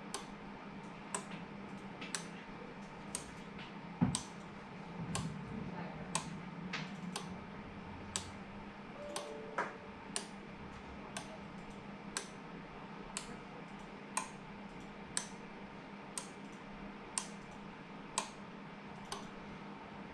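Steady ticking, about one sharp tick a second, with a knock about four seconds in and some faint handling noise after it.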